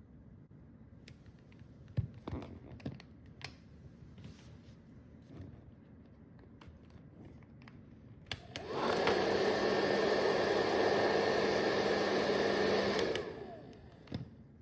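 A few light clicks and knocks of handling, then a hair dryer switched on, running at a steady whirr with a low hum for about four seconds, then switched off and winding down.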